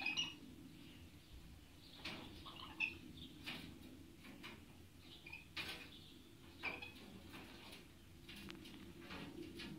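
Pair of lories clambering on a wire-mesh cage door: scattered clicks and scratches of claws and beaks on the wire, with a few short, high chirps.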